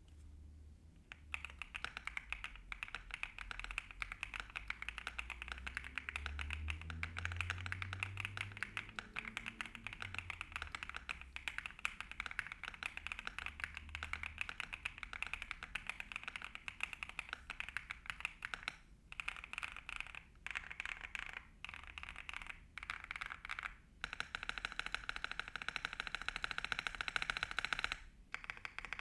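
Fast, continuous typing on a Varmilo VA100 mechanical keyboard with pre-lubed Kailh Prestige Light V2 switches and PBT double-shot keycaps, its unaltered stock sound. The keystrokes start about a second in, pause briefly a few times later on, and come densest near the end.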